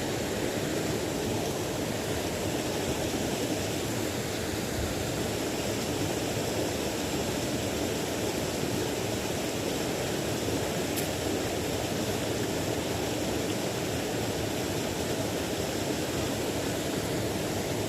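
Water rushing over rocks in a stream: a steady, even noise.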